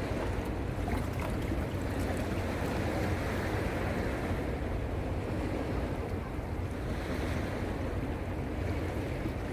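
Sea surf washing onto a sandy beach, a steady rushing noise that swells and eases slowly, with a low rumble that may partly be wind on the microphone.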